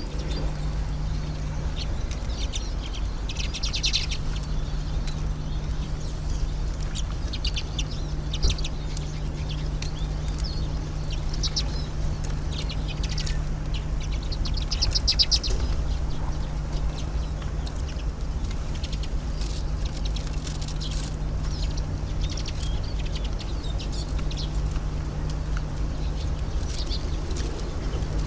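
Small songbirds at a feeder: scattered short high chirps and calls, with rapid rattling trills about 4 and 15 seconds in. Under them runs a steady low rumble with a constant hum.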